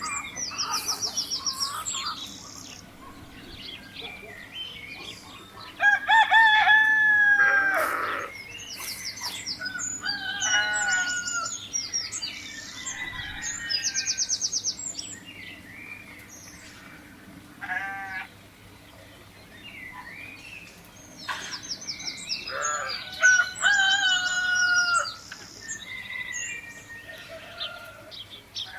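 Roosters crowing several times, long calls that fall at the end, with small birds chirping in quick high trills between and over them.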